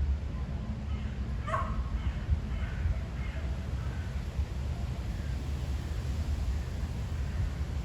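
A dog barking in the distance, a run of short barks in the first half with the sharpest about a second and a half in. Under it is a steady low rumble of wind on the microphone.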